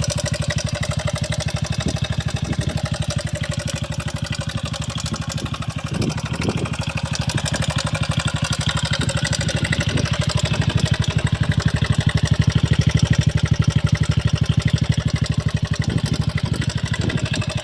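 Honda FTR's single-cylinder four-stroke engine idling with a steady, even beat, getting a little louder for a few seconds in the middle. The seller lists it as having an abnormal engine noise.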